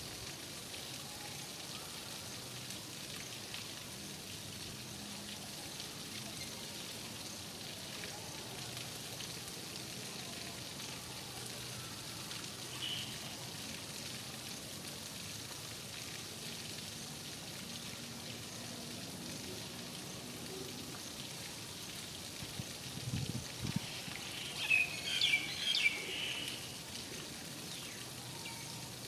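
Steady rain hiss, with a bird calling once midway and then in a quick run of short chirps near the end.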